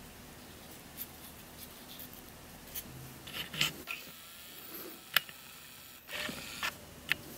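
Small 3D-printed plastic puzzle pieces being handled and picked from a pile on a tiled tabletop. Faint rubbing with scattered light clicks as the pieces knock together, the sharpest about five seconds in.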